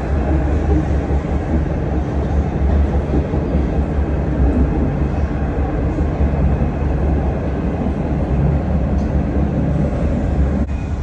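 Dubai Metro train running along its elevated track, heard from inside the carriage as a steady low rumble with the hiss of motion over it.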